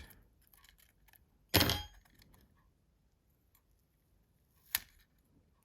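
Small hard parts or a tool knocked against a hard work surface: one brief clatter about one and a half seconds in, a few faint ticks, and a single sharp click near the end.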